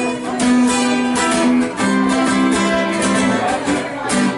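Acoustic guitar being played, strummed chords with ringing notes in an instrumental passage without singing.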